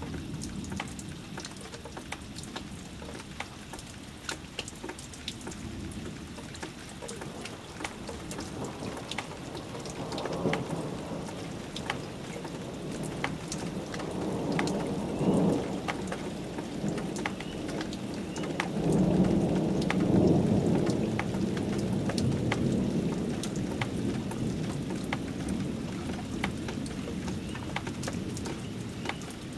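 Thunderstorm: rain falling steadily with sharp drops ticking, and thunder rumbling in long rolls that build from about ten seconds in and are loudest about two-thirds of the way through before easing off.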